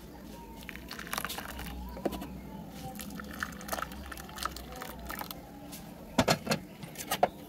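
Liquid chocolate pudding mixture being poured from a pan into glass bowls, with small clinks of the pan against the glass and several sharp knocks of glass bowls and pan near the end.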